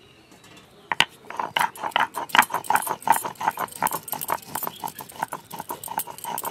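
Cumin seeds being ground by hand on a stone grinding slab (sil-nora): rapid crunching, clacking strokes of stone on stone, several a second, starting about a second in.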